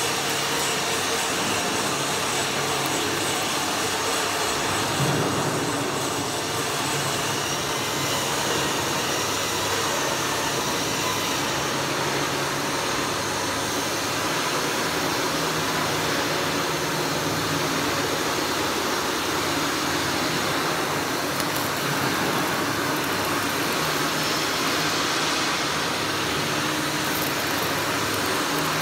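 Electric arc welding on the steel base of a ship's mooring bollard: a steady, even hiss of the arc that never breaks off.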